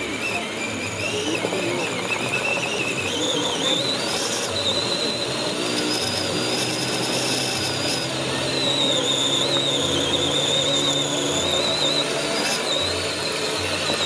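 Electric motor and gearbox of an 8x8 RC scale truck whining as it crawls up a steep dirt slope. The whine wavers up and down with the throttle and climbs higher about three to four seconds in.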